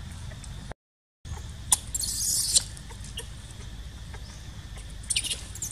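Baby macaque giving short, high-pitched squeaks, with one louder, shrill squeal of about half a second around two seconds in. The sound cuts out completely for about half a second just before the first second.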